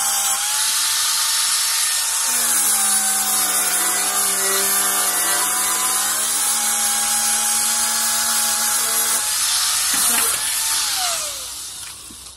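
Corded angle grinder with an abrasive disc grinding paint off a crashed car door panel: a steady motor whine over a loud hissing scrape, the pitch sagging for a few seconds as it is pressed harder. About ten seconds in it is switched off and whines down to a stop.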